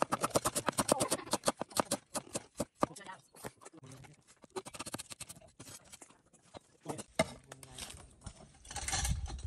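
Cleaver chopping chilies and green onion on a thick wooden chopping board: a fast run of knocks for about three seconds, then slower, scattered chops.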